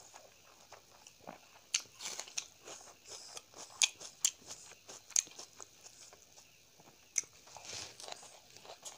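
Close-up sounds of a person eating rice and chicken curry by hand: wet chewing and sharp lip smacks and clicks at irregular moments, with fingers squishing and mixing rice on the plate.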